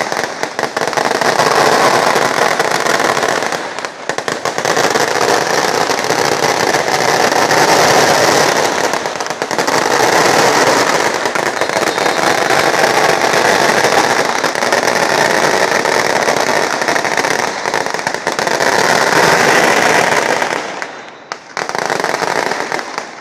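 Firecrackers going off nonstop in a dense, rapid crackle of bangs, easing off sharply near the end before picking up again.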